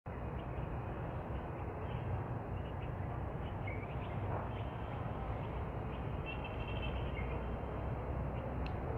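Garden ambience: a steady hiss and low rumble throughout, with a few short, faint bird chirps about four seconds in and again between six and seven seconds.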